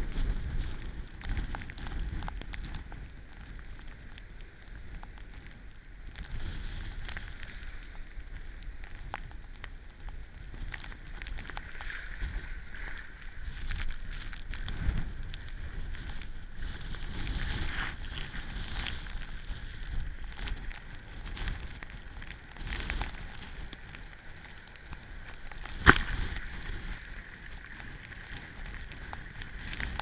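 Foaming storm-surge floodwater churning and rushing over a flooded beach parking lot, with wind gusts buffeting the microphone in low rumbles. Late on, about four seconds before the end, a single sharp knock is the loudest sound.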